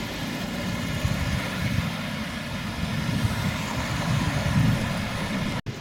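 Street traffic noise: a steady, fluctuating low rumble of passing vehicles.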